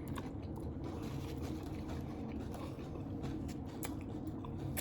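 Quiet eating sounds: faint scattered clicks and soft mouth noises over a steady low room hum.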